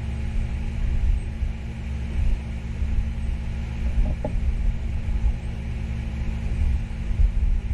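Steady low rumble with a constant hum and a faint hiss above it, and a brief pitched sound about four seconds in.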